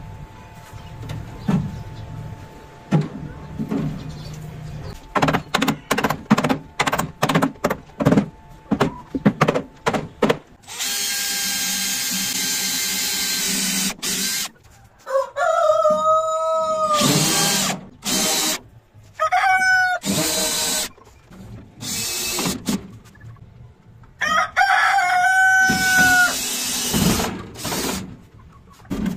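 A rooster crowing three times, mixed with a power drill running in several short bursts, the longest about three seconds. Before that, a quick run of sharp knocks.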